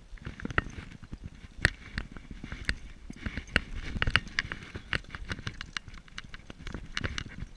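Pike thrashing at the water's surface beside a float tube as it is landed by hand: irregular sharp splashes and knocks, several a second.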